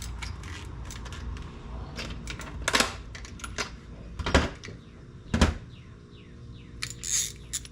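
Hand-handling clicks, taps and knocks of a ratcheting screwdriver and its packaging being unpacked, with a few sharper knocks spread through (the loudest about five seconds in) and a brief rustle near the end.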